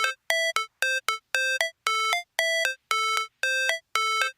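Electronic beeping melody: short synthesized two-note figures, a longer lower note then a brief higher one, repeating a little under twice a second with clean gaps between, like a ringtone or a chiptune music intro.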